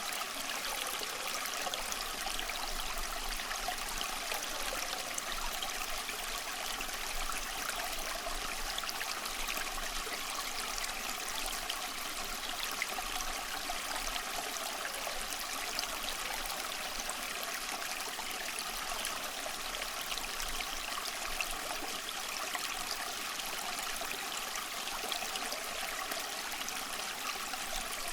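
Small stream of water flowing over stones, an even babbling and trickling that stays steady throughout.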